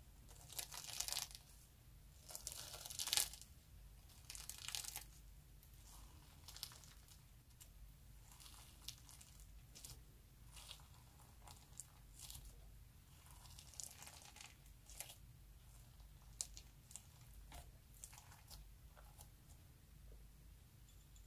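Fingers pressing, poking and folding a pink slime mixed with star-shaped spangle glitter, giving a crackling sound in irregular bursts. The bursts are loudest in the first five seconds, then turn softer and more scattered.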